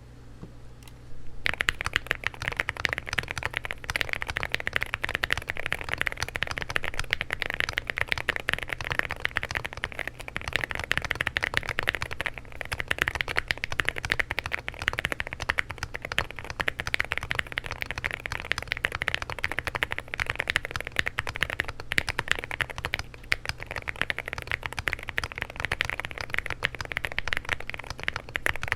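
Continuous fast typing on a stock Akko JIN01 65% mechanical keyboard (gasket-mounted FR4 plate with its foams, Akko Rosewood linear switches, thick PBT keycaps), a rapid stream of key clacks that starts in earnest about a second and a half in.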